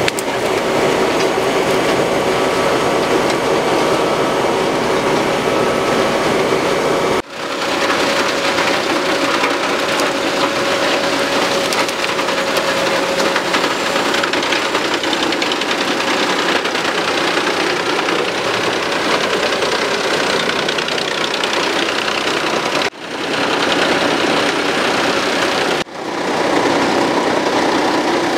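HeizoHack wood chipper running under load, chipping branches, over the steady run of the New Holland T8.330 tractor engine that drives it. The sound drops out briefly three times, about seven seconds in and twice near the end.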